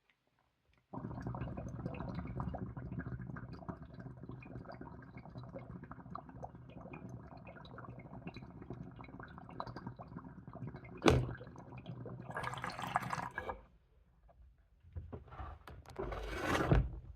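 Water bubbling steadily through a bong or bubbler during a long draw of about twelve seconds, with a sharp click near the end of the draw. Then come a few breathy bursts as the vapour is exhaled.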